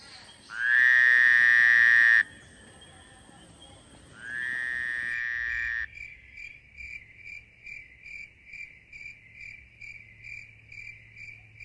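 Two long, steady high calls, the first loud and the second quieter, followed by an insect chirping evenly at one high pitch, a little over twice a second, over a faint low hum.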